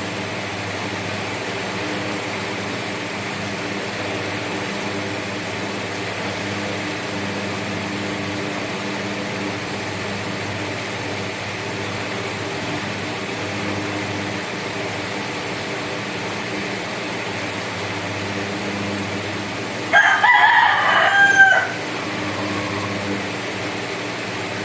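A rooster crows once near the end, a single call of about a second and a half, over a steady background hum.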